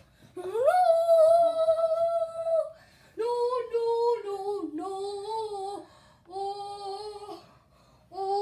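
Someone sings a wordless tune in a high voice. It opens with one long held note, followed by a run of shorter notes with short breaks between them.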